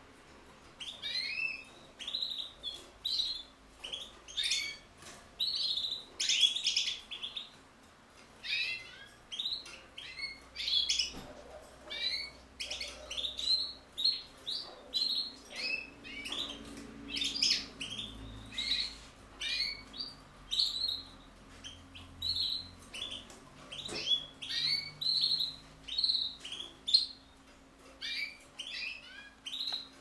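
Linnet × canary hybrid singing: a long run of quick twittering chirps and short trills, in phrases about a second apart with brief gaps between them.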